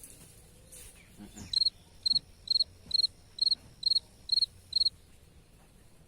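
An insect chirping: eight loud, evenly spaced high-pitched chirps, about two a second, starting about a second and a half in and stopping before the end.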